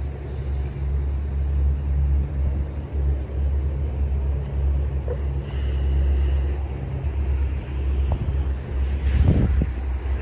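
Low, steady rumble of a freight train's diesel locomotives approaching slowly, with a short thump about nine seconds in.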